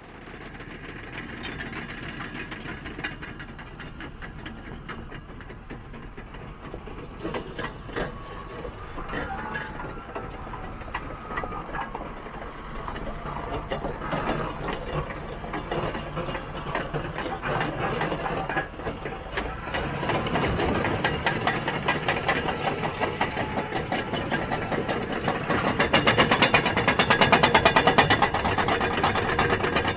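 Caterpillar D6T XL bulldozer on the move: its diesel engine running under a rapid clanking of the steel tracks, growing louder as the machine comes closer and loudest near the end.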